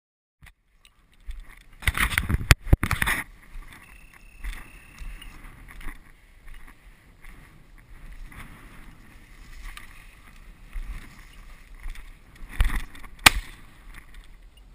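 Low scrub and brush rustling and swishing against a body-mounted camera as a hunter walks through dwarf birch and heath, with a few sharp knocks.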